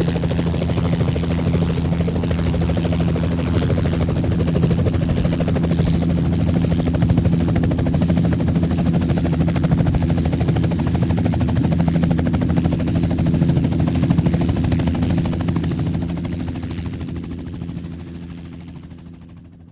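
Helicopter running steadily, a rapid rotor beat over a low engine drone, fading away over the last few seconds.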